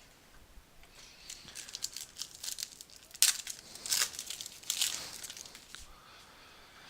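Crinkling and tearing of a trading-card pack wrapper as a pack is opened by hand: a run of sharp crackles, loudest about three seconds in, that die away after about five seconds.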